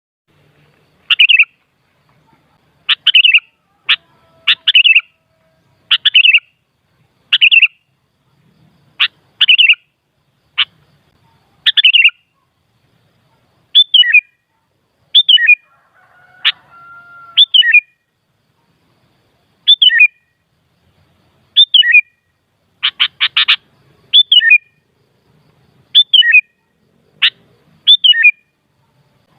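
Sooty-headed bulbul (kutilang) calling: short, bright notes, many dropping in pitch, repeated every second or two. About three quarters of the way through there is a quick run of several notes.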